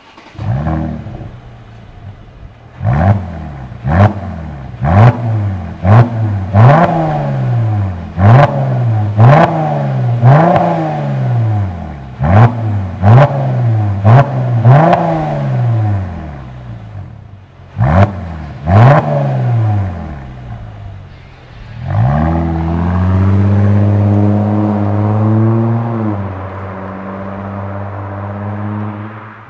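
Mercedes-Benz CLS350 V6 through an aftermarket stainless steel performance exhaust, loud version: the engine catches, then is revved in about fifteen sharp throttle blips, each snapping up and falling back with a crack at the tailpipes. About three quarters of the way through, the revs climb and hold as the car pulls away, then settle to a lower steady note.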